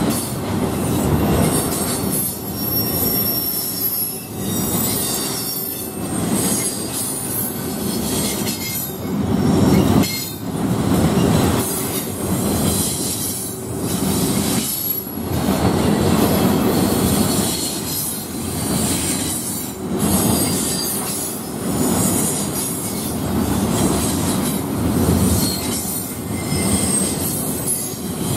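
Double-stack intermodal container well cars of a freight train rolling past at a grade crossing: a loud, continuous rumble and clatter of steel wheels on the rails that swells and eases every couple of seconds as the cars go by, with brief high wheel squeals now and then.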